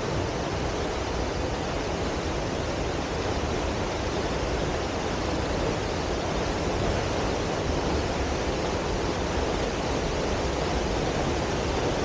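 Dry Falls waterfall pouring, a steady, even rush of falling water.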